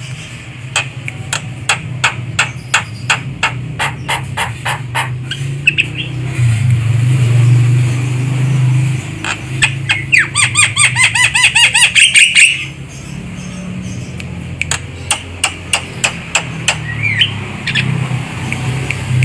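Javan myna calling: a string of sharp, clicking notes, a fast run of harsh repeated chatter about ten seconds in, and a few short whistles later. A steady low hum runs underneath.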